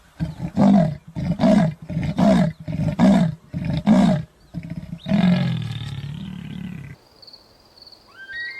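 A large animal giving a series of five short, deep roars about a second apart, followed by one longer roar that tails off. A steady high whistle-like tone begins near the end.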